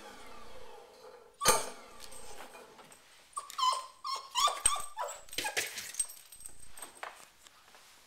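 An agitated Boston terrier barks sharply about a second and a half in, then whines and yelps in high calls. Its claws click and scrape against the wooden cabinet door.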